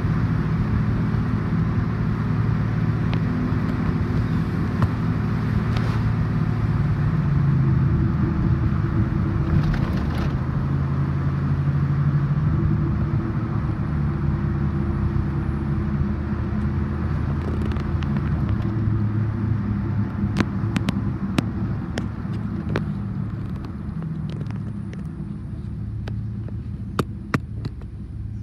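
Car engine and tyre noise heard from inside the cabin while driving on a wet road. The engine note shifts in pitch as the speed changes, and the road noise fades near the end as the car slows to a stop. A few sharp clicks come in the last third.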